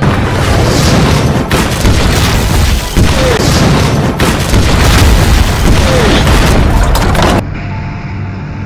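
Film-style explosions: a string of heavy blasts with deep rumble, a new one every second or so. Near the end they cut off abruptly into a quieter, muffled stretch.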